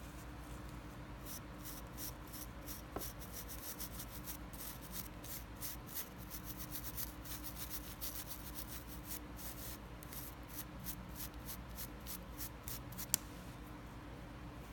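A toothbrush scrubbed back and forth over the frayed end of a paracord strand, a long run of quick scratchy strokes of nylon bristles on cord, with one sharper click near the end.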